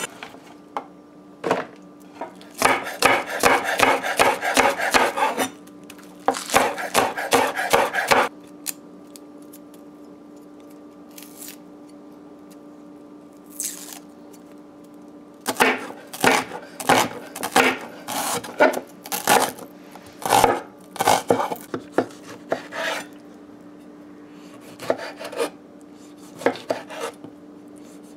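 Kitchen knife chopping on a wooden cutting board: two quick runs of rapid strokes in the first several seconds, then after a pause a series of slower, separate cuts. A faint steady hum sits underneath.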